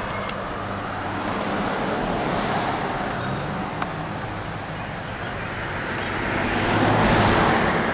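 Road traffic noise: a car's engine hum and tyre rush, swelling louder about seven seconds in.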